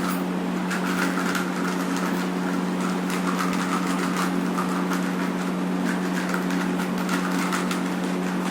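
A steady mechanical hum with a few fixed low tones, overlaid by faint intermittent higher chirps and small clicks.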